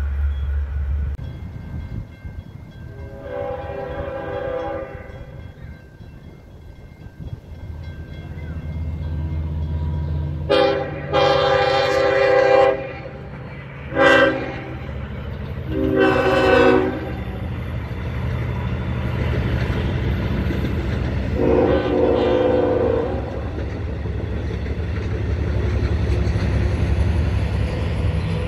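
A Long Island Rail Road diesel train sounds its horn several times as it passes, mostly in long blasts with one short one. A steady low diesel rumble runs underneath.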